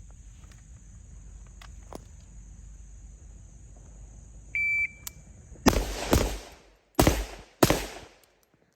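A shot timer beeps once. About a second later a Citizen Arms AR-pattern rifle chambered in 7.62x39 fires four shots within two seconds, a quick pair and then two single shots, during a target-transition drill.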